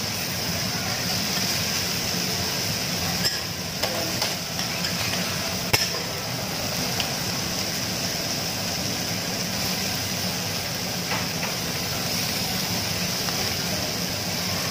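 Squid, salmon and meat sizzling in oil on a flat steel teppanyaki griddle, a steady hiss over a low hum. A few sharp clicks of metal utensils knocking on the plate come about three to six seconds in.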